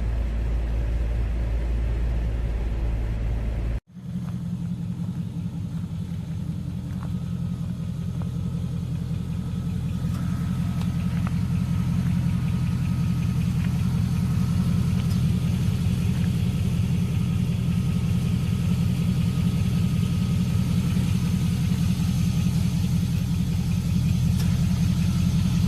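Chevy Avalanche pickup's engine idling steadily, a low even hum. The sound cuts out for an instant about four seconds in and then resumes unchanged.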